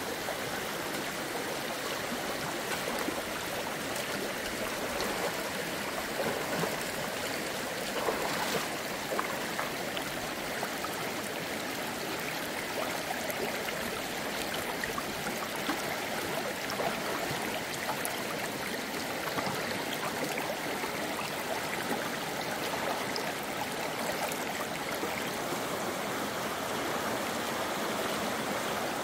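Running water, a steady rushing with occasional faint clicks.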